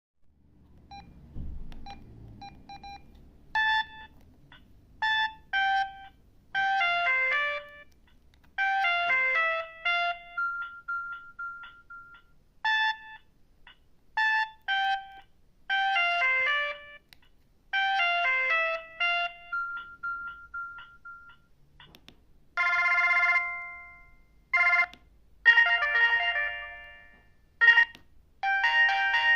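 Samsung SGH-C160 mobile phone playing its built-in ringtones: a short electronic melody played through twice. About 22 seconds in, a different tone with longer held chords takes over.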